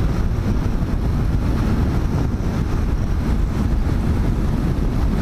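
Motorcycle running at motorway speed, with wind rushing over the microphone as a steady, loud rumble.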